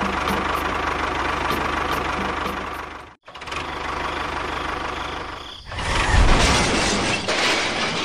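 Tractor engine running steadily with a low knocking beat. It cuts off abruptly about three seconds in, then runs again and grows louder, as if revved, about six seconds in.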